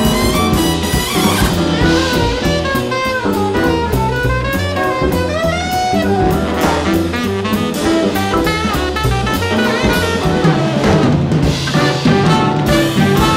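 Jazz music with brass horns over a drum kit keeping a steady beat.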